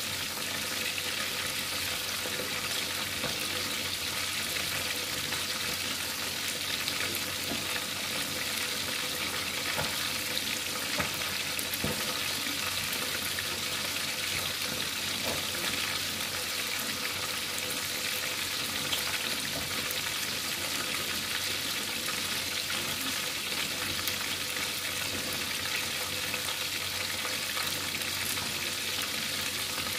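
A whole tilapia frying in hot oil in a pan: a steady sizzle with the odd small crackle from the oil.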